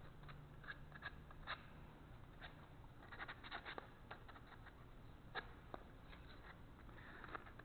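Sandpaper rubbed by hand over the corners and edges of a 2x4 pine block: faint, irregular short scratching strokes with a few small knocks.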